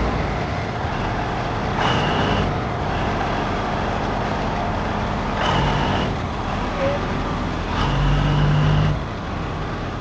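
Diesel train rolling slowly past at very close range, a steady rumble, with short horn blasts about 2, 6 and 8 seconds in.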